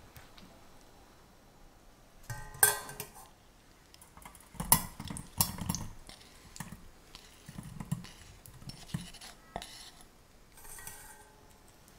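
Mixed berries and their juice tipped from a glass bowl into a stainless steel mesh sieve over a saucepan: soft thuds as the fruit drops in, clustered about five seconds in and again a few seconds later. There is a ringing clink of glass against the metal about two and a half seconds in, and a fainter one near the end.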